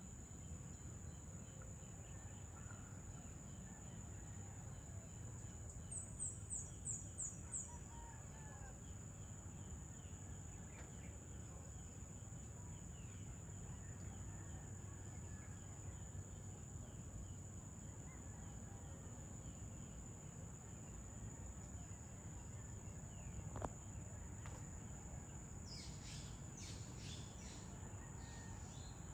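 Dusk ambience of a steady high-pitched insect trill over a low rumble. About six seconds in a bird gives a quick run of about five chirps, the loudest sound here, and another bird calls near the end. A single sharp click comes about three-quarters of the way through.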